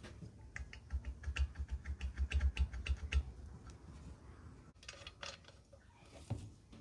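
Light metallic clicks and rattles as the crusher housing is worked by hand onto an angle grinder that is switched off: a quick run of about five clicks a second for a couple of seconds, then a few scrapes near the end.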